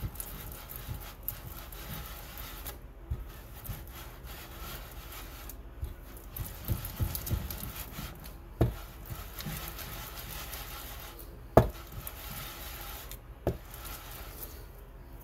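Muller scraping in circles over the plate through coarse, gritty Prussian Blue (PB27) oil paste: a steady rasping rub. The pigment's large particles were not ground before mulling, so the paste is grainy. A few sharp knocks sound, the loudest about three-quarters of the way in.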